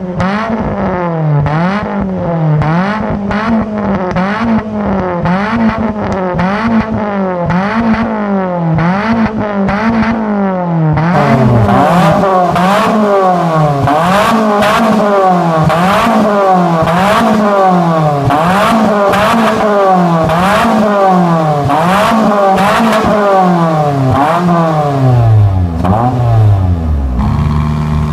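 Suzuki Swift engine revved again and again through an aftermarket axleback exhaust with dual exits. The pitch rises and falls about once a second, and the sound gets brighter and louder about eleven seconds in.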